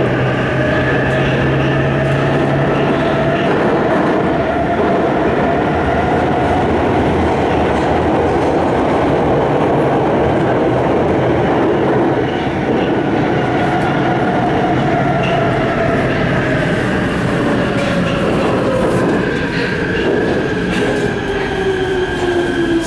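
Prague metro train running, heard from inside the car: a steady rumble of wheels on the rails with the traction motors' whine, which rises and levels off, then falls steadily in pitch over the last several seconds as the train slows.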